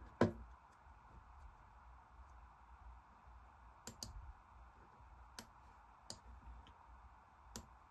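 Computer mouse clicking: one sharp, louder click about a quarter second in, then several lighter clicks spaced through the second half, over a low steady room hum.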